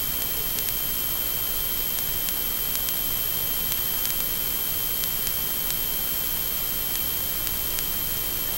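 Steady static hiss with a thin, high, steady tone and faint scattered ticks: the noise of an analogue FPV video link's recording while the plane sits still.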